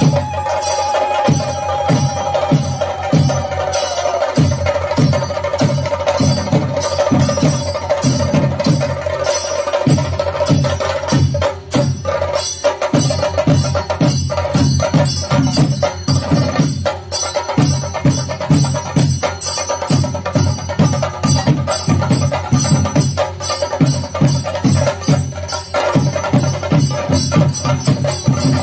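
Kerala temple festival percussion ensemble playing fast, continuous drumming, with one long high note held over it that slides down in pitch over the first few seconds and then stays steady.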